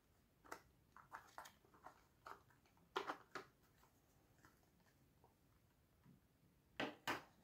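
Faint clicks and taps of a plastic electronics box and its battery holder being handled, with two louder knocks near the end.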